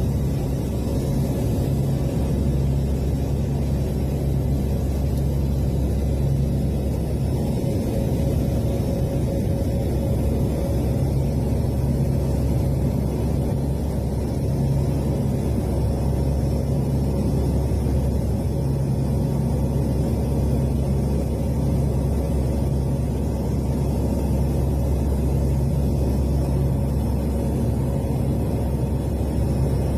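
Aircraft engine noise heard from inside the cabin in flight: a steady, unchanging drone with a low hum.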